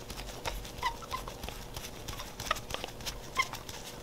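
Screwdriver turning a small screw into a Baja 97cc mini-bike carburetor: scattered light clicks and taps of tool and part in the hands, with a few short squeaks.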